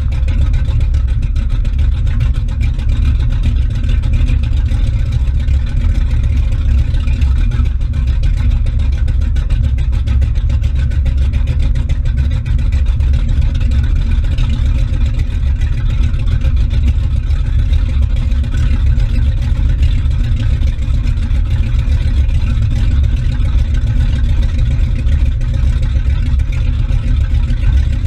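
Motorboat running steadily at speed: a steady low engine rumble with the wake churning and splashing behind the stern.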